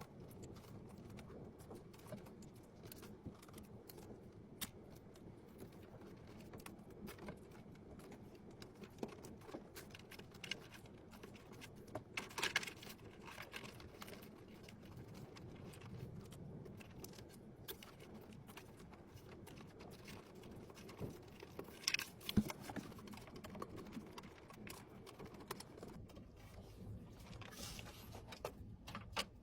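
Faint, scattered clicks and light rattles of small hardware being handled, with a few sharper clusters of clicks about 12 and 22 seconds in, over a low steady hum.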